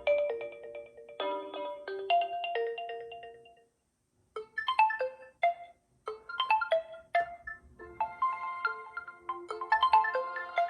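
Oppo A17 stock ringtone playing: a melody of quick pitched notes, each struck and dying away, that fades out a little before four seconds in. After a short silence, another phrase of struck notes starts and runs on in short bursts.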